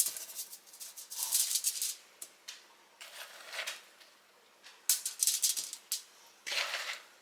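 A metal spoon scraping through a bowl of chocolate-coated crushed ramen noodles and peanuts, scooping out and dropping spoonfuls: about five short bursts of dry rattling, scraping noise.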